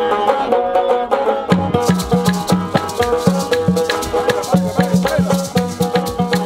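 Small Haitian acoustic band playing live: strummed banjo and acoustic guitar over a steady shaken-rattle beat from maracas, with a low bass part coming in about a second and a half in.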